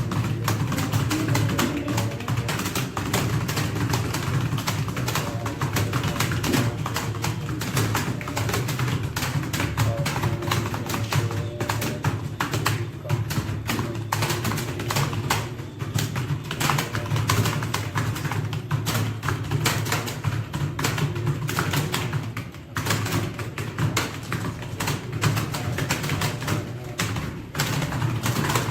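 Fast, continuous typing on a computer keyboard: a dense stream of key clicks with no real pauses.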